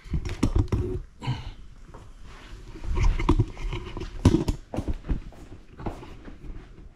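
Footsteps on a hard wood-look floor, uneven taps and low thumps, mixed with the rustle and knocks of things being carried.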